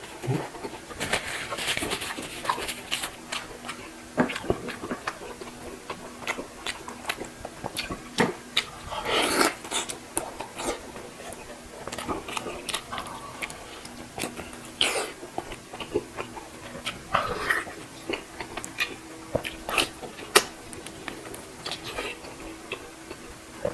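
A person eating bulalo beef shank soup close to the microphone: chewing and slurping, with many short clicks.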